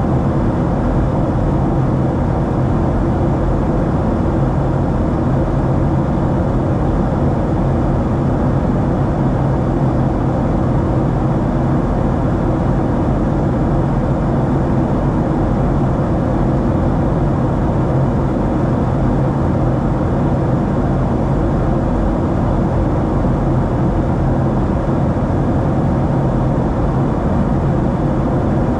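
Steady cabin noise of a Boeing 737-700 in flight: a constant low rumble and rush of air and engine noise from its CFM56 turbofans, with a faint steady hum underneath and no change throughout.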